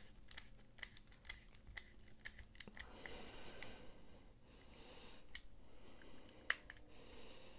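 Faint, irregular small clicks of a precision screwdriver bit turning screws in a folding knife's handle, with one sharper click about six and a half seconds in.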